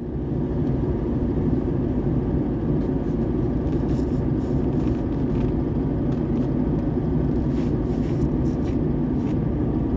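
Strong wind ahead of a storm buffeting the microphone: a loud, steady low rumble with faint scattered ticks above it.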